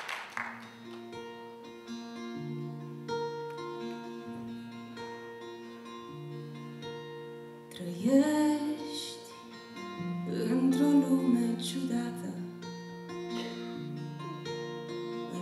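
Amplified acoustic-electric guitar playing a slow picked intro, the last of the applause fading as it begins; about eight seconds in a woman starts singing over the guitar.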